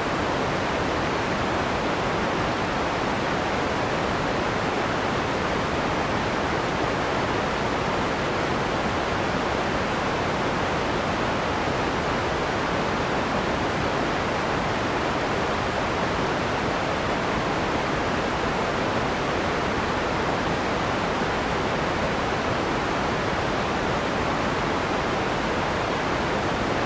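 Steady white-noise sound effect: an even, unbroken hiss that does not change, fuller in the middle range and thinner in the highs.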